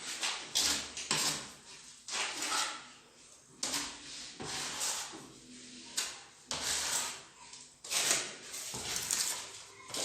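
Steel spatula scraping across a wall as plaster is spread and smoothed, in a run of irregular strokes.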